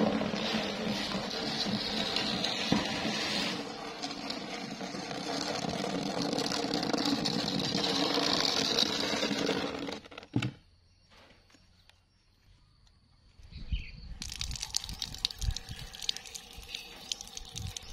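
Plastic baby bathtub dragged across rough concrete, a steady rasping scrape for about ten seconds that stops suddenly. After a few near-silent seconds, water runs from a standpipe tap with low rumbling and small clicks.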